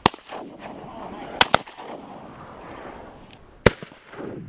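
Shotgun shots: one at the very start, a quick pair about a second and a half in, and one more near three and a half seconds in.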